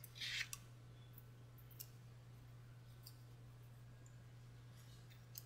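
Near silence over a steady low hum, with a brief soft rustle of fingers handling a tiny die-cut paper piece just after the start and a couple of faint ticks later.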